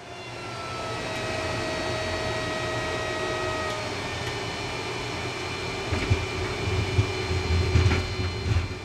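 Cockpit sound of a T-6B Texan II's Pratt & Whitney PT6A-68 turboprop on landing: a steady engine and propeller drone with faint whining tones that fade out about halfway through. In the second half a rougher, bumping low rumble comes in as the wheels roll on the runway.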